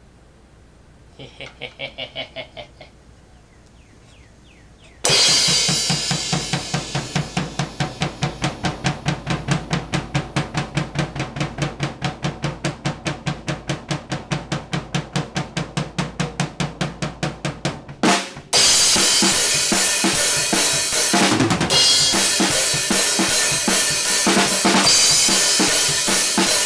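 Drum kit with Meinl cymbals played. After a short run of faint quick ticks, a crash about five seconds in starts a steady, evenly spaced beat. A brief break comes near the end, followed by a fuller groove with cymbal crashes.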